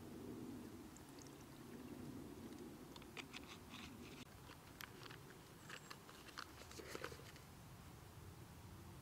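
Faint handling of a plastic water bottle: small crinkles and clicks as the bottle is squeezed and its screw cap twisted, clustered from about three to seven seconds in.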